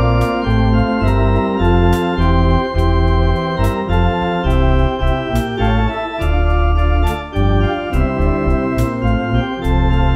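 Technics electronic organ playing a hymn: sustained chords over a moving bass line, with a steady beat.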